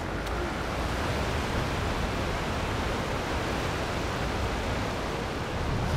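Steady rush of sea surf mixed with wind, an even roar without distinct breaks.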